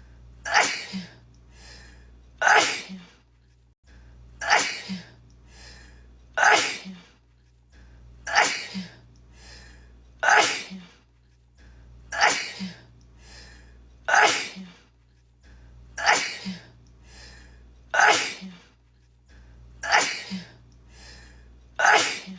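A woman sneezing, one sharp sneeze about every two seconds, each with a smaller catch just after it. The same sneeze is looped over and over, so every repeat sounds identical.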